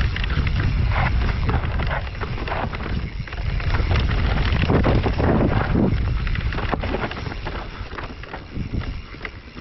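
Mountain bike riding down a rough trail: tyres running over roots and stones with many short knocks and rattles from the bike, and wind buffeting the action camera's microphone. The noise grows quieter over the last couple of seconds.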